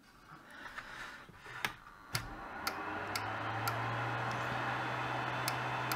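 Ender 3 Pro 3D printer powering up: after a click about two seconds in, its cooling fans spin up into a steady hum and whir. Sharp clicks from the printer's rotary control knob being turned run through it.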